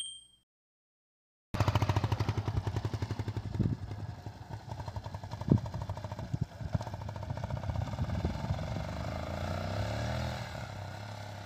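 Motorcycle engine running with a fast, even pulsing beat that begins suddenly after a second and a half of silence; its pitch rises and then falls about two thirds of the way through as the bike rides off. A single sharp knock sounds about five and a half seconds in.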